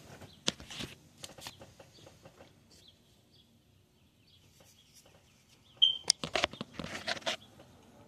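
Bird calls in short, sharp bursts: a few near the start, then a brief high whistle and a louder rapid cluster about six to seven seconds in.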